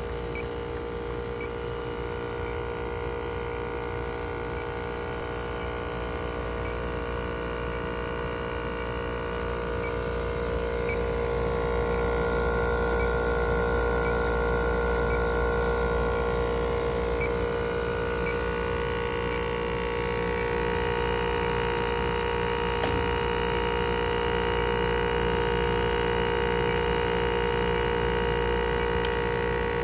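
ClimateMaster water-source heat pump running: a steady hum of several tones that grows louder about a third of the way through and changes tone a little past the middle.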